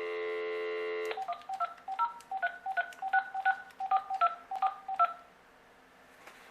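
Dial tone on a VTech DS6361 cordless phone that cuts off about a second in, followed by a quick run of DTMF keypad tones, about three or four beeps a second, as an outside number is dialled.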